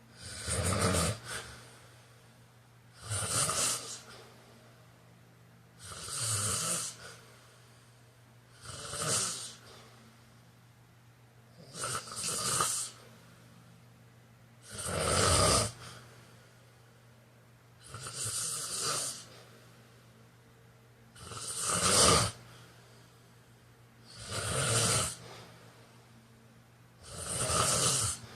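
A man snoring in his sleep, one snore roughly every three seconds, ten in all.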